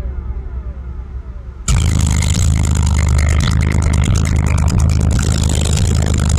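Single DSS Ethos 15-inch subwoofer in a 3.6-cubic-foot box tuned to 29 Hz, playing deep bass in a truck cab. Just under two seconds in it jumps suddenly to loud, and the bass comes with a harsh rattling buzz across the whole range.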